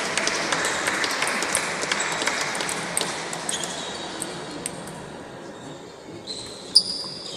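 Crowd noise in a sports hall dying away after a point. Near the end a table tennis ball cracks sharply off the table or paddle as the next rally begins.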